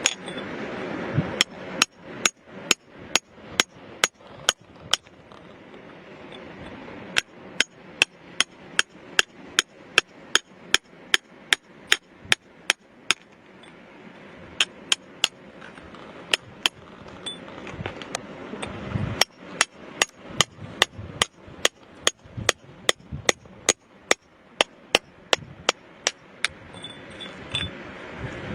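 Hammer striking rock in a steady series of sharp blows, about two to three a second, with a brief pause about five seconds in.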